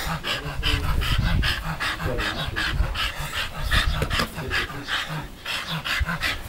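American Bully dog panting hard and fast, about four breaths a second, while gripping and tugging a rope toy, with low rumbling at times underneath.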